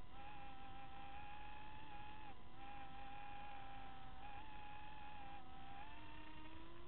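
Steady whine of a small remote-controlled aircraft's electric motors and propellers, its pitch dipping and rising a little several times.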